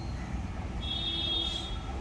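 Low steady rumble of an approaching passenger train hauled by a WAP-1 electric locomotive, still some way off. A thin high tone rises over it for about a second in the middle.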